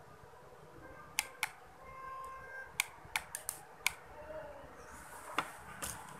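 Light, sharp clicks and taps, about nine of them at irregular intervals, from small hard objects being handled.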